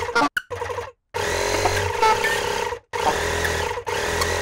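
Small twin-tank electric air compressor running with a steady motor hum, together with a sustained low saxophone note that switches it on. The sound cuts off abruptly and restarts several times.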